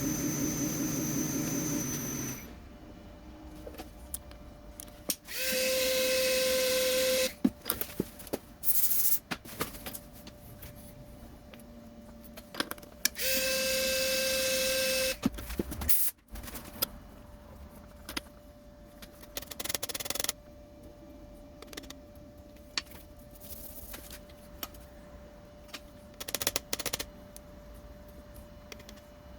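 A workshop machine runs steadily and stops about two seconds in. Two bursts of about two seconds each follow, each a steady tone with a hiss. Scattered clicks and knocks sound between them.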